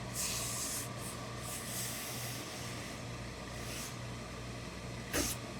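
Coat lining fabric being handled and smoothed out on the worktable: several brushing rubs of cloth, then a short sharp knock near the end, over a steady low hum.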